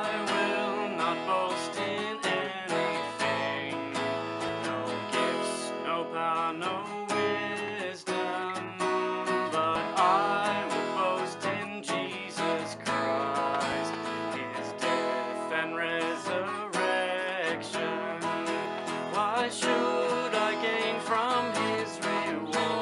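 Instrumental music led by acoustic guitar, plucked and strummed, playing on without singing.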